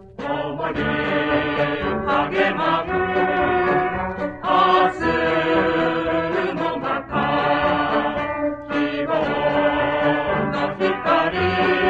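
Mixed chorus singing in Japanese, accompanied by a high-school brass band, played back from a 33⅓ rpm flexi-disc (sonosheet) recording.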